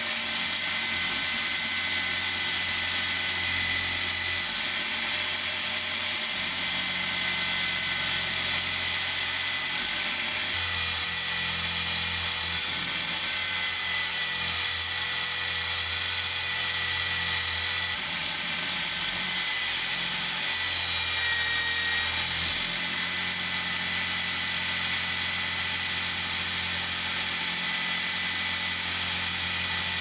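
Electric rotary power tool running a small abrasive wheel at high speed, a steady whine with hiss as a thin steel knife part is held against the wheel and ground. The pitch wavers slightly in the middle.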